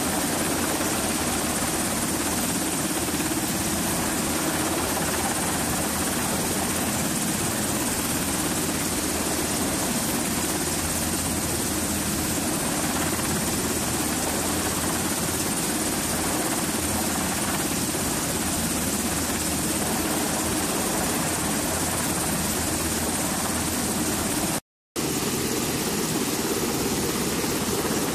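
MH-60S Sea Hawk helicopter running loud and steady, with its main rotor and twin turboshaft engines, as it hovers down onto the flight deck and then turns on deck after landing. The sound cuts out for a moment near the end and comes back a little duller.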